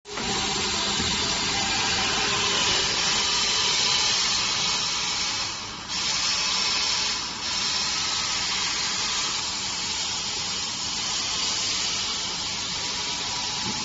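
A running 15 kW high-frequency embossing machine gives a steady hiss with a faint hum. The hiss dips briefly twice around the middle, then comes back at once.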